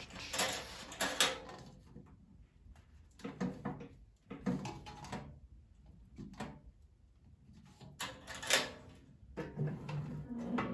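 Metal latches and locked drawers of a small steel two-drawer toolbox being worked by hand: a run of clicks, clunks and rattles, the loudest about eight and a half seconds in.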